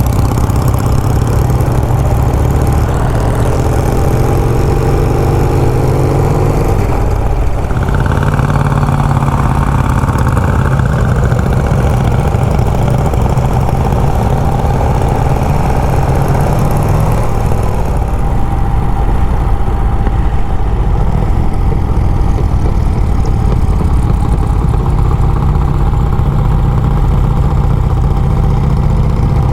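Vintage motorcycle engine running steadily and loudly, its note shifting about seven seconds in and again around eighteen seconds.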